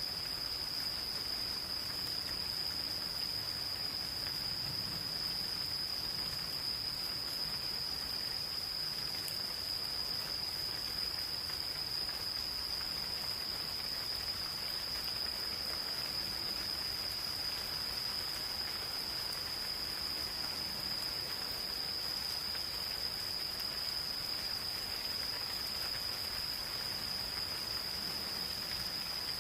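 Insects singing one continuous, steady high-pitched trill over the even patter of light rain falling in a forest.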